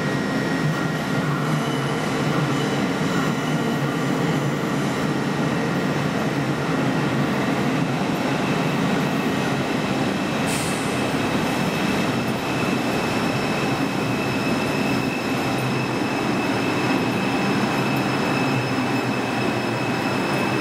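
R142 subway train pulling into the station and slowing to a stop, a steady rumble of wheels on rails. A brief hiss comes about halfway through, and after it a steady high-pitched squeal sits over the rumble.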